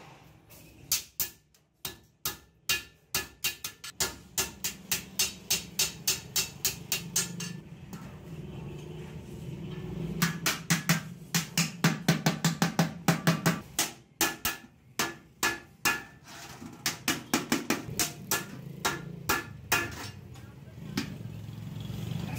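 Hand hammer striking a galvanized sheet-steel bucket around its bottom, in quick runs of sharp metallic blows about three to four a second, with short pauses between the runs.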